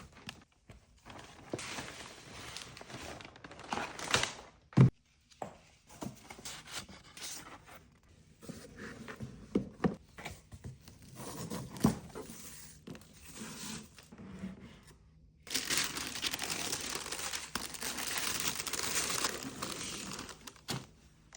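Paper packaging being handled and unwrapped: irregular rustling and crinkling, with a sharp knock about five seconds in and a long stretch of steady crinkling near the end.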